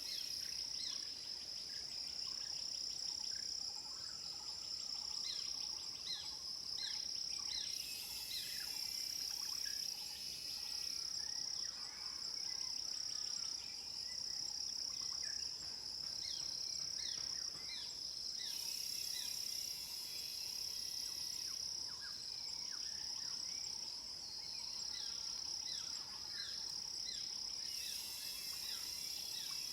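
Tropical forest insect chorus: cicadas and crickets hold a steady high drone, with a louder, hissing cicada burst of about three seconds coming three times, roughly ten seconds apart. Over it a bird repeats short, quick downward-sliding call notes, about two a second in runs.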